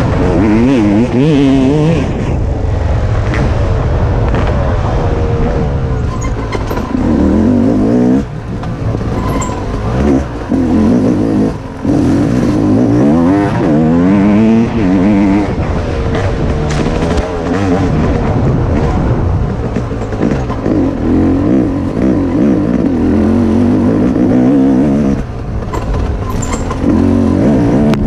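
Dirt bike engine under hard riding, its pitch climbing and dropping back again and again as the throttle is worked through the gears, with brief let-offs about 8 and 11 seconds in.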